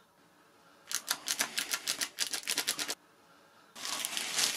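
Fast rattle of about twenty clicks over some two seconds as the loose flap on a Freewing A-6E foam RC jet wing is worked back and forth by hand: play at the flap's control horn. Plastic bag crinkling near the end.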